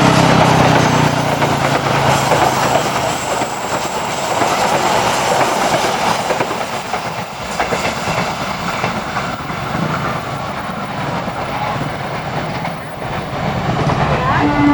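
A passing train's wheels running steadily and loudly over the rails, easing off slightly twice before swelling again. Right at the end a locomotive horn begins to sound.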